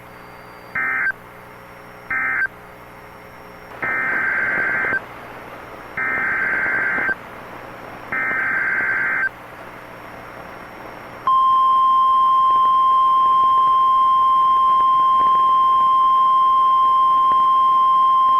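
NOAA Weather Radio emergency alert (SAME) data bursts. First come two short end-of-message bursts of warbling data tone, then three longer header bursts about two seconds apart. About eleven seconds in, the steady 1050 Hz weather-radio warning alarm tone starts, louder than the bursts, signalling that a new warning follows.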